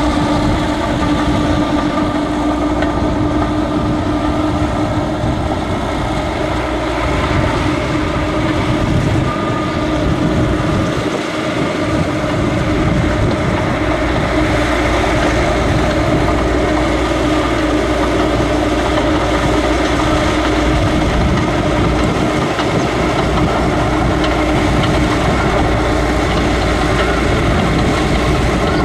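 Diesel engine of a tracked paddy tractor running steadily under load as it plows through a flooded rice field, with water churning around its tracks.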